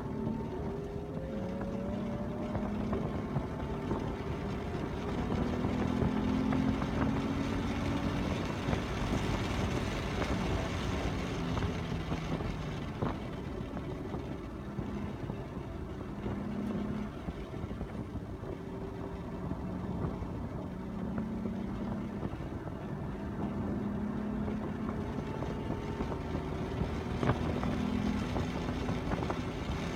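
Car engines running at a racetrack, their notes stepping up and down in pitch as the revs change, with a short sharp crack about midway and another near the end.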